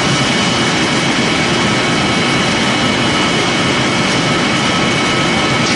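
Biomass pellet mill running under load: a loud, steady machine noise with two faint steady high whines.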